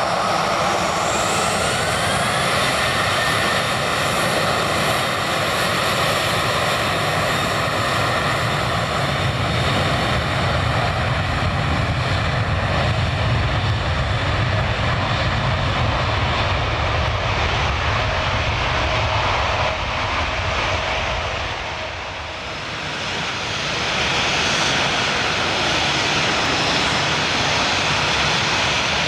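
Twin-engine jet airliner's turbofan engines at takeoff power, a loud steady roar with a whine that rises in pitch near the start. The roar dips briefly about three quarters of the way through, then returns as loud as before.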